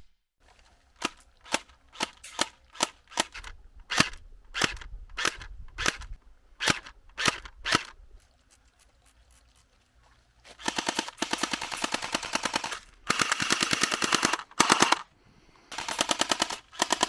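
Battery-powered AK-74 airsoft replica firing BBs: a string of single shots about two a second, then after a short pause four rapid full-auto bursts, the longest about two seconds.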